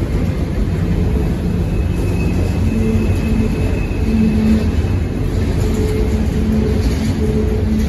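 Cars of a mixed freight train rolling past on the rails, a steady heavy rumble of wheels on track, with a faint high whine for a few seconds in the middle.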